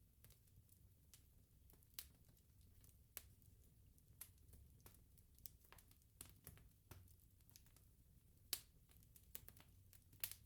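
Wood bonfire crackling: irregular sharp snaps and pops over a low steady rumble, the loudest pop about eight and a half seconds in.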